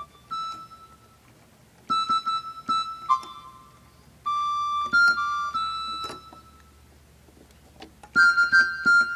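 Yamaha electronic keyboard played in its recorder voice: short phrases of high, steady single notes, several bursts with pauses between them.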